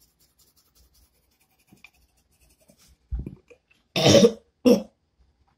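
A person gagging while brushing their tongue with a toothbrush: a short low retch about three seconds in, then two loud, harsh gags, the gag reflex set off by the brush on the tongue.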